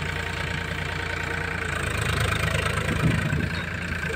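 Powertrac Euro tractor's diesel engine running steadily as it pulls a spring-tine cultivator through loose dumped soil to level it.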